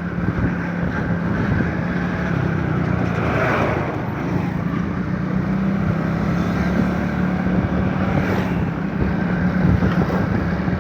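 Motor vehicle engine running steadily while travelling, with wind buffeting the microphone.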